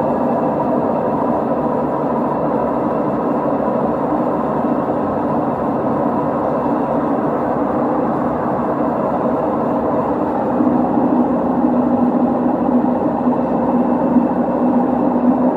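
LG direct-drive washing machine running with a loud, steady mechanical rumble; a stronger steady hum comes in about ten and a half seconds in. The noise is the very loud, annoying fault being diagnosed.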